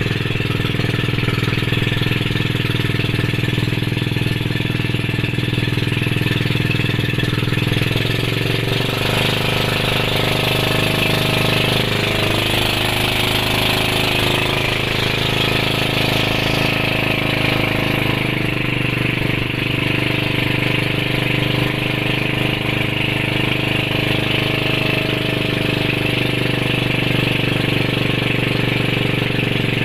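Engine of a motorized outrigger boat running steadily while under way, with a slight change in engine pitch about eight seconds in.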